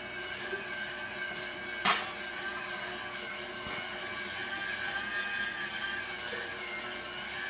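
Cabela's Pro Series electric meat grinder running steadily while grinding venison, a steady motor whine with one sharp knock about two seconds in.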